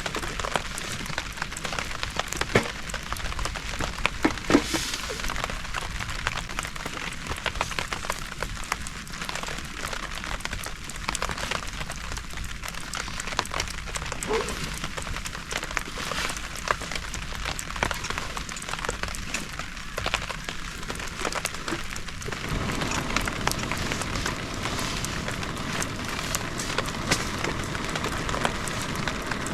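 Steady heavy rain falling, with many separate drop hits ticking through it; about three quarters of the way through the sound thickens and gets a little louder.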